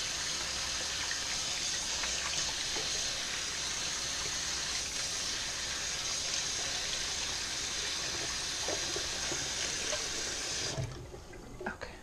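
Kitchen sink tap running steadily, shut off abruptly near the end, followed by a couple of faint knocks.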